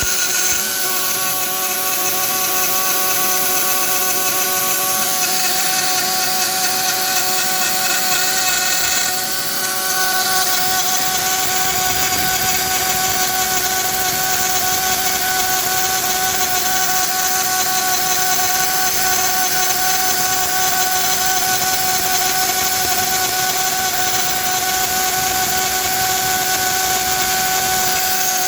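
Dremel rotary tool in a DIY CNC mini mill, spinning a two-flute metal-cutting bit as it mills a slot into a metal model train chassis: a steady high whine with a grinding cutting noise. The cutting gets rougher about nine seconds in.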